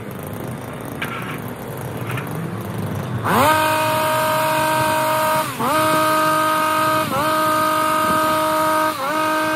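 Stihl HS 82T two-stroke petrol hedge trimmer idling, then revved sharply to full throttle about three seconds in and held there while cutting. The high engine note dips briefly three times.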